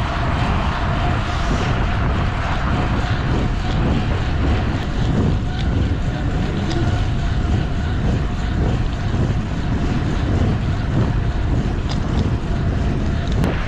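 Wind buffeting the microphone, a steady low rumble, with a thin steady whine running underneath.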